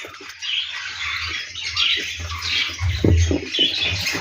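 Lovebirds chirping and squawking, many short calls overlapping.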